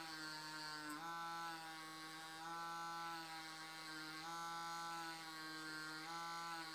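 A permanent-makeup (micropigmentation) pen's small motor buzzing steadily while its needle fills in an eyebrow tattoo. Its pitch shifts slightly a few times as the load on the needle changes.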